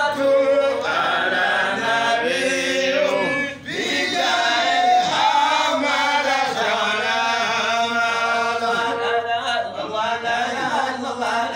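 Men's voices chanting a devotional chant together, held melodic lines with a brief pause for breath about three and a half seconds in.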